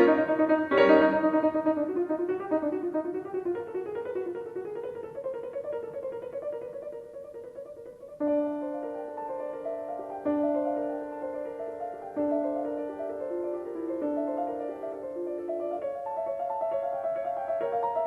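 Solo piano playing classical music. Loud chords at the start die away, and about eight seconds in a new phrase begins, with a low note struck again every couple of seconds under moving notes above.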